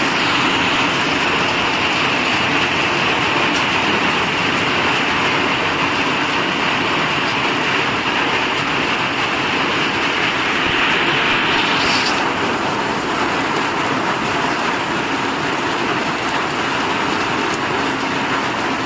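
Heavy rain pouring down in a steady, loud hiss; its higher hiss eases a little about twelve seconds in.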